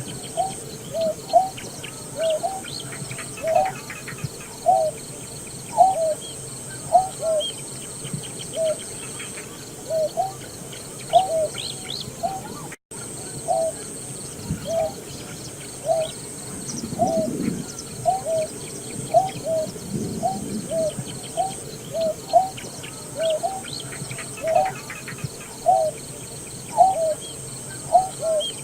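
Greater painted-snipe calling: a long series of short, low hooting notes repeated about once a second, over a steady high insect buzz.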